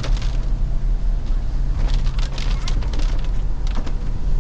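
Toyota Innova Crysta driving, a steady low engine-and-road rumble, with a scattering of sharp clicks and taps about two seconds in and again near the end.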